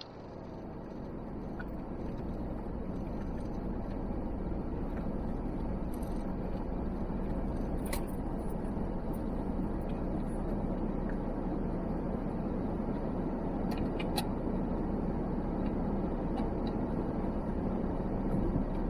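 Four-wheel-drive vehicle driving on a dirt track: a steady low rumble of engine and tyres that fades in over the first few seconds, with a couple of sharp knocks about 8 and 14 seconds in.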